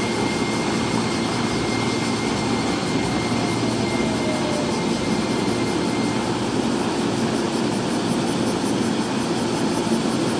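JR Kyushu 885 series electric express train running slowly as it pulls into a platform: a steady rumble of its running gear and motors, with a faint high whine over it and a fainter tone falling in pitch about three seconds in.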